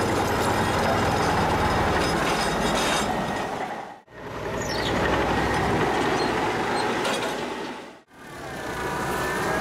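Hitachi ZX130K excavator with an end-compaction attachment working, engine running steadily while the attachment compacts the edge of RCD dam concrete. The sound drops out briefly twice, about four and eight seconds in.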